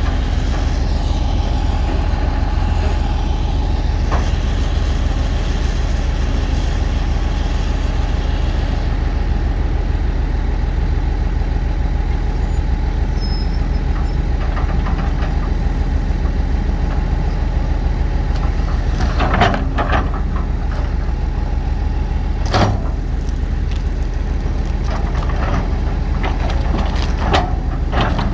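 Heavy diesel engine running steadily with a low, fast pulse, and a few sharp metallic clanks over it in the second half.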